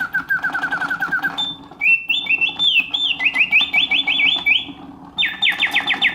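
Antique Bontems singing bird cage automaton whistling its mechanical birdsong through its bellows-driven whistle: a quick run of falling chirps, then a warbling trill, then rapid falling sweeps near the end, with the clockwork mechanism clicking underneath.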